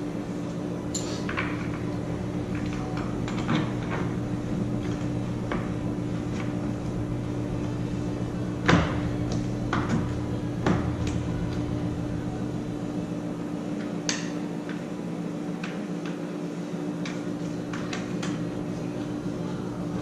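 Scattered clicks and knocks as a Power-Pole Micro Anchor is handled and fitted onto its mounting bracket, with the sharpest knock about nine seconds in, over a steady low hum.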